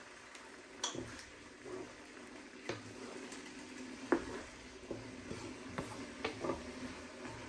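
Wooden spoon stirring a soupy chicken and chickpea mixture in a wok, the liquid sloshing and the spoon knocking and scraping against the pan a few times, loudest about halfway through.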